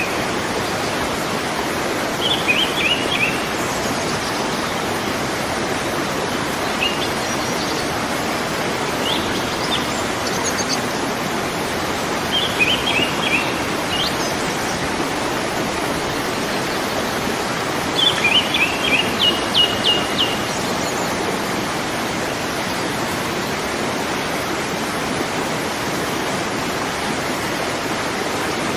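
Waterfall rushing steadily, a dense even roar of falling water. A small bird chirps over it in short, quick clusters every few seconds, the loudest burst about two-thirds of the way through.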